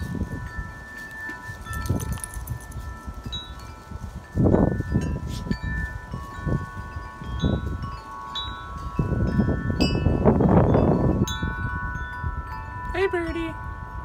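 Wind chimes ringing, several long, overlapping tones held throughout. Gusts of wind rumble on the microphone, strongest about four and a half seconds in and again from about nine to eleven seconds.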